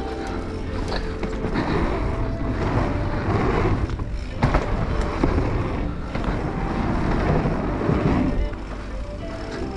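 Mountain bike riding fast down a dirt trail, heard from a camera on the rider: steady rolling and rattling noise from the tyres and bike, with a few sharp knocks about four seconds in as it runs over a wooden boardwalk.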